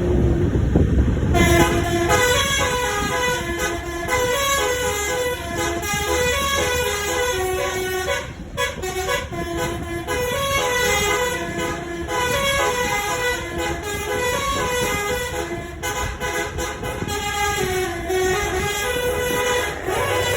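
Basuri 'telolet' multi-tone musical horn on a tour bus playing a quick tune of stepped notes, several tones sounding together, starting about a second and a half in over the bus's running noise. Wind rushes on the microphone before the horn starts.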